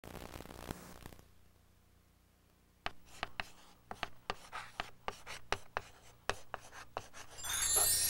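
Chalk writing on a blackboard: a quick run of taps and short scratches for about four seconds, after a second of tape hiss at the start. Near the end a bright shimmering chime swells in.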